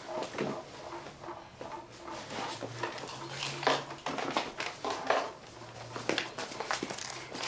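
Rustling and light knocks from a cloth tote bag being handled and books being pulled out of it and set down on a desk.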